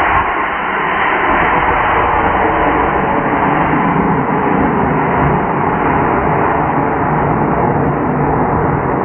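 Mid-power G55 model rocket motor roaring steadily as the Madcow Adventurer rocket lifts off and climbs.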